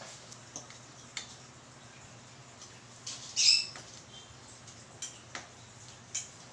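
A spoon and fork clink lightly against a ceramic bowl of noodle soup a few times, over a low steady hum. About three and a half seconds in there is a short high squeak, the loudest sound here.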